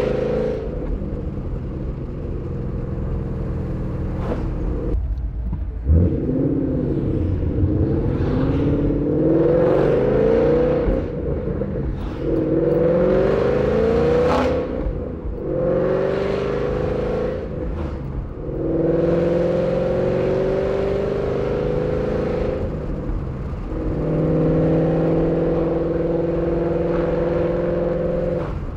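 2012 Ford Mustang GT's 5.0 Coyote V8 running through long-tube headers, an off-road X-pipe with the resonators deleted and a Borla ATAK axle-back. The engine accelerates several times, its pitch rising and falling back at each gear change. The note holds steadier for stretches in the second half.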